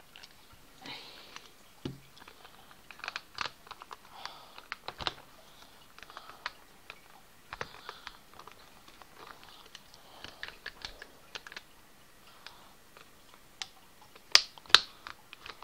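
Samsung Galaxy Note's plastic housing clips clicking and snapping loose as an opening tool is worked along the edge of the phone: a run of small scattered clicks, with two loud snaps about a second before the end. This snapping is normal when the case is pried open.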